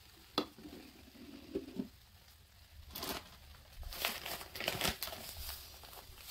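Plastic bag of Roma laundry detergent powder crinkling in several bursts as it is handled, from about three seconds in. Before that, a sharp tap and a few soft sounds.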